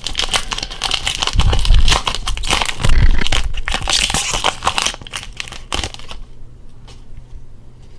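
Foil Pokémon booster pack wrapper crinkling as it is torn open and handled, with two dull thumps about one and a half and three seconds in; it dies down after about six seconds.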